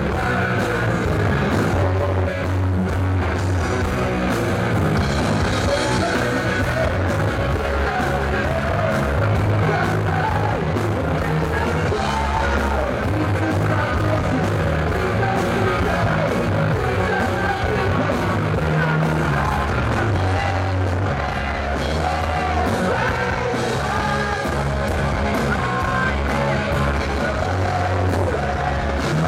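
Live rock band playing loud: electric guitar, bass guitar and drums, with a man singing into the microphone.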